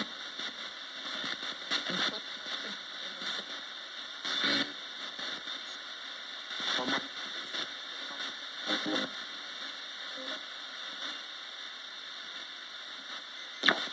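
Roberts radio left on between stations: a steady hiss of static, broken every second or two by short louder bursts, with a sharp crack near the end.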